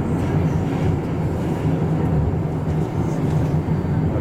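Steady running rumble of an Incheon Line 2 driverless metro train in motion between stations, heard from inside the front car.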